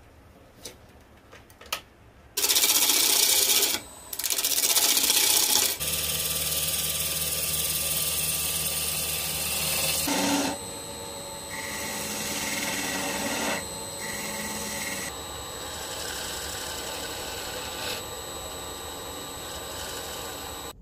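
Wood lathe spinning a workpiece while a hand-held turning tool cuts into it, with scraping and rasping cuts. After a few light ticks, two loud bursts of cutting come about two and four seconds in. The cutting then goes on steadier and quieter over the lathe's low hum and a faint steady whine, changing in level several times.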